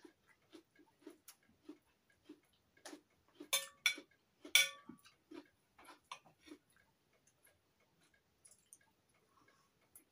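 Knife and fork clicking and scraping against a china plate as food is cut, in a loose run of light taps. Two louder clinks a little past the middle ring briefly.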